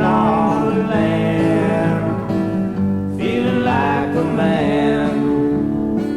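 Country-style song music: acoustic guitar chords with a wavering melody line over them, twice rising and falling.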